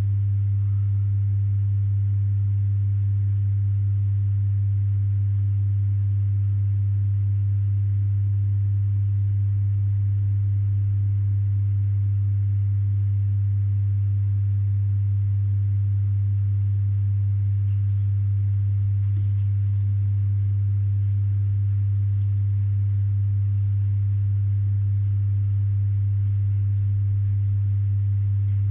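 Steady low electrical hum: one deep constant tone with fainter overtones above it, unchanging throughout. Faint light ticks come through it in the second half.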